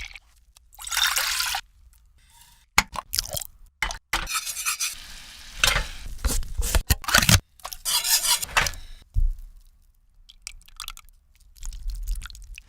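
Kitchen food-preparation sounds: stirring and utensils clinking against dishes, in several short noisy bursts with sharp clicks between them.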